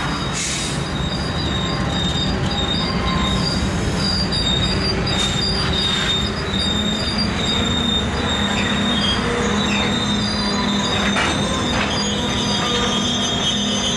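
Freight train rolling past close by: the trailing diesel locomotive and then covered hopper cars, with a steady high-pitched wheel squeal over a continuous low rumble.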